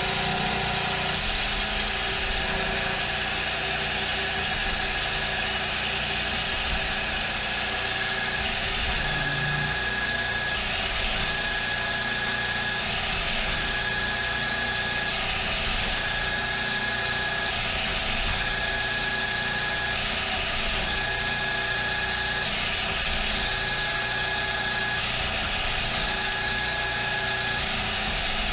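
CNC milling machine peck-drilling with a larger drill bit under flood coolant: the geared spindle runs steadily while a higher tone comes and goes about every two seconds as the drill pecks in and out. The gearbox runs under no load and does not bog down on the pecks.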